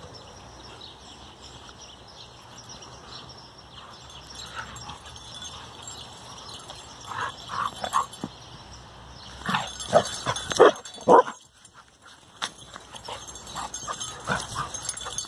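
Carolina dog giving short yips and barks while playing with a stick, in two bursts about seven and ten seconds in, the second the loudest.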